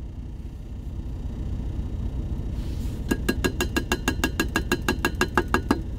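Cayenne pepper being shaken out of a plastic spice shaker into a metal coffee tumbler. The shaker gives a quick run of clicking rattles, about eight a second, that starts about three seconds in and lasts about three seconds.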